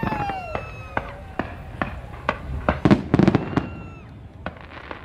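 Fireworks exploding: a high tone gliding down in the first second, then sharp cracks and pops, densest in a quick run of bangs about three seconds in.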